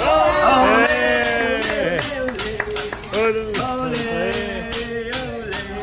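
Music with a singing voice and a steady beat of sharp clicks, about four a second, starting about a second in.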